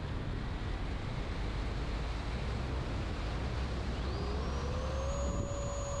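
Avanti V3 RC jet's electric ducted fan running, a steady rush with a low rumble of airflow. About four seconds in, the fan's whine rises in pitch as it spools up, then holds steady.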